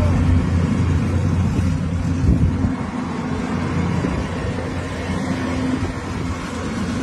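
Heavy construction machine's engine running steadily with a low hum under a rough noisy wash; the hum eases a little about two and a half seconds in, around a single knock.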